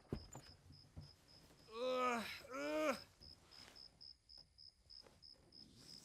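A man's two strained, wordless groans, each rising and falling in pitch, about two seconds in, over steady, evenly pulsed cricket chirping, with a few soft knocks.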